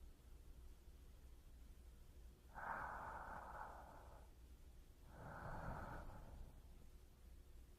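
A person's slow breaths close to a binaural microphone: two long, faint breaths, about two and a half and five seconds in, each lasting over a second.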